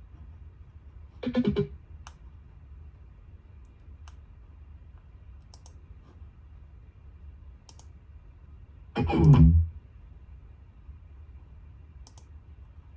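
Marshall Middleton portable Bluetooth speaker playing two short guitar-like sounds, one about a second and a half in and a longer one about nine seconds in, over a steady low hum, with a few faint clicks between them.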